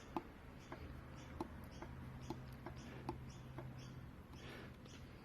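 Faint, irregular metallic clicks, about two a second, from the connecting rods of a Mercedes OM617 five-cylinder diesel being rocked side to side on their crankshaft journals. Every rod has the same side play, which is taken for normal side clearance rather than the source of the knock.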